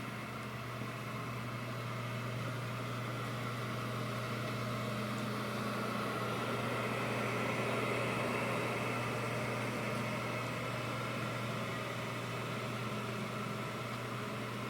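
BEcom BE-PH-STD proofer humidifier running in steam-and-heat mode: its fan, steam generator and electric heater make a steady electrical hum under an even airy rush, growing a little louder around the middle.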